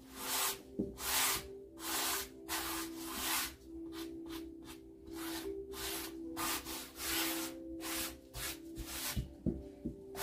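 Gloved hands rubbing wet acrylic paint across a stretched canvas, a steady series of short swishing strokes about one and a half a second. It is the sound of working a thin tacky base coat smooth before a pour. A few light knocks come near the end.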